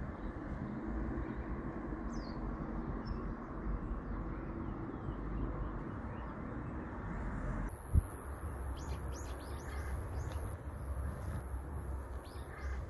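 Small birds chirping in short repeated calls, starting about nine seconds in, over steady outdoor background noise; a single sharp click sounds just before the chirping begins.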